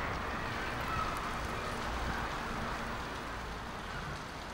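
Outdoor city street ambience: a steady low rumble of traffic with wind noise on the microphone.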